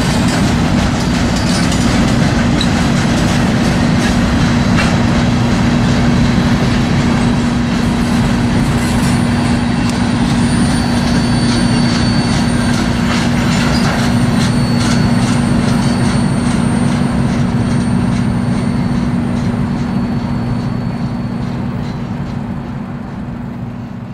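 Freight cars rolling past: a steady rumble of steel wheels on rail, with regular clicks over the rail joints and a faint high wheel squeal in the middle. The sound fades away as the end of the train goes by.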